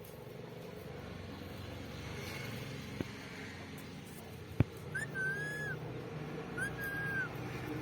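Parrot whistling: two separate steady-pitched whistles of under a second each, in the second half, with a sharp click shortly before them and a low steady background hum.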